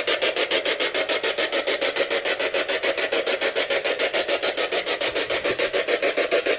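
Spirit box sweeping through radio stations, giving a rasping static chopped into rapid, even pulses, several a second.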